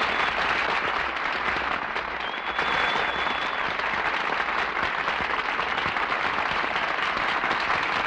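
Studio audience applauding steadily, on a 1948 radio broadcast recording.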